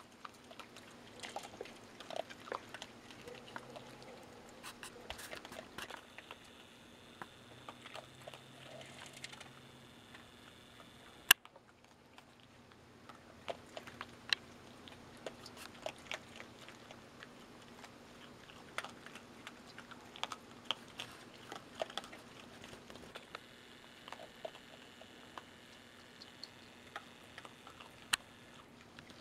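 Raccoons chewing dry kibble from pet bowls: irregular crunching and clicking throughout, over a faint steady hum. One much louder sharp click comes about 11 seconds in, and another near the end.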